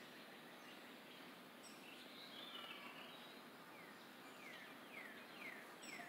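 Faint outdoor ambience with a songbird calling: a short warbled phrase about two seconds in, then a run of high downslurred whistled notes, about two a second, in the second half.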